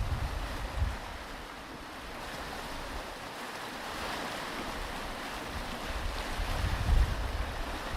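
Ocean surf washing on a beach, swelling to a peak in the middle. Wind buffets the microphone in low gusts near the start and again near the end.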